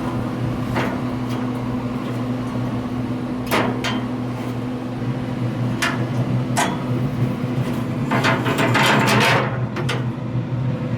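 Pit Boss 820 pellet grill starting up on high, its fan humming steadily. Scattered sharp clicks and knocks, with a short rattling burst about eight seconds in.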